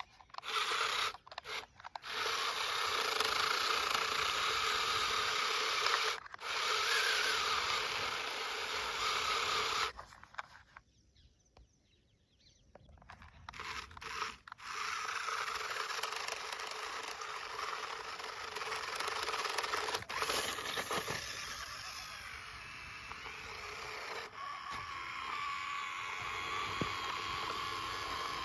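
Toy RC rock crawler's small electric motor and gearbox whining as it drives through sand, with grit scraping under the tyres. The whine drops out briefly a few times and stops for a couple of seconds about ten seconds in.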